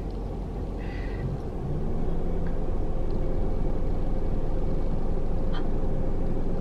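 Steady low vehicle engine rumble, stepping up louder about two seconds in and then holding, with a faint steady hum.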